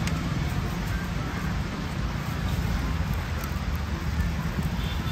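Steady street background: a low rumble of passing road traffic with an even noisy hiss over it.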